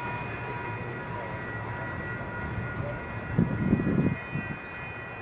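Amtrak Siemens Venture passenger cars rolling past with a steady rumble. There is a brief louder rush about three and a half seconds in as the last car goes by.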